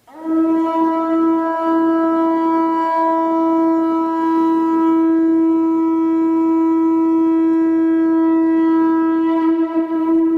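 Conch shell trumpet blown in one long held note, starting abruptly and wavering slightly near the end.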